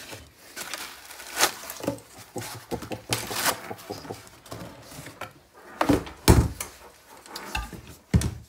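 Handling noises from unpacking an e-bike controller and its accessories: rustles and knocks as parts and packaging are moved and set down on a hard surface, with the loudest thumps about six seconds in and again near the end.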